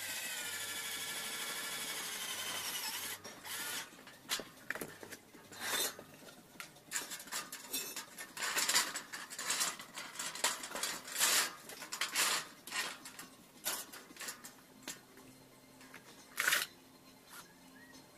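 A power drill runs for about three seconds, its pitch sagging slightly as it works into the metal angle frame. It is followed by a long string of irregular clicks, clinks and scrapes of metal parts and tools being handled.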